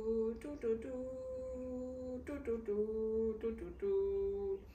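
A woman humming a short tune with her lips closed: a run of held notes that step up and down in pitch, one held longer in the middle.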